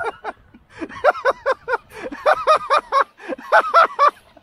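A person laughing hard in quick ha-ha-ha bursts, three runs of it, the last near the end.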